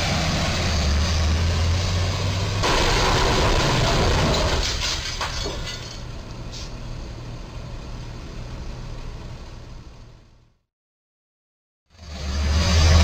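Box truck's diesel engine running as it drives up, then a louder crash with a few sharp cracks and scrapes as the truck's box strikes the overhead crash beam of a low railroad bridge. The sound fades out to silence about ten seconds in, and a loud truck engine comes back in just before the end.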